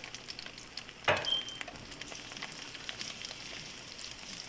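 Flour-dredged, egg-washed cod fillets frying in hot oil in a nonstick pan: a steady sizzle with fine crackling. A single clink with a brief ring about a second in.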